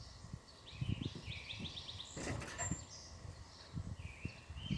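Small birds chirping, including a quick run of chirps about a second and a half in, over low rumbling bumps on the microphone, with a short hiss a little past two seconds in.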